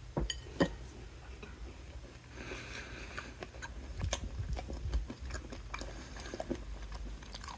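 A person biting into a soft-baked maple nut breakfast bar and chewing it, with two sharp clicks near the start followed by small irregular mouth sounds.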